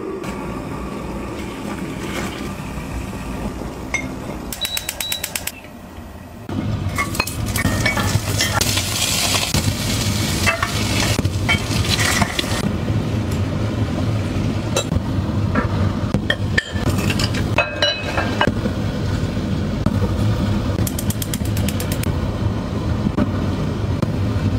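Kitchen cooking sounds: utensils and dishes clinking against pots and bowls, stirring, and rice being poured into an enamelled pot, over a steady hiss that gets louder about six and a half seconds in.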